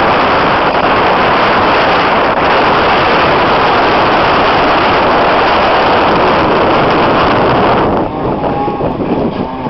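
Jet ski running at speed, its engine buried under a loud rush of wind on the microphone and water noise. About eight seconds in the rush drops away and a wavering whine comes through.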